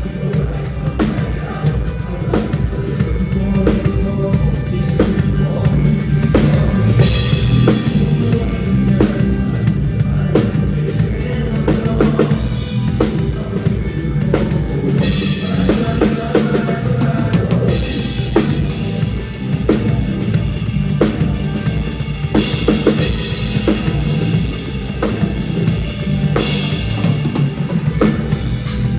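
Drum kit playing a steady kick-and-snare beat along with band music, with cymbal crashes ringing out every few seconds.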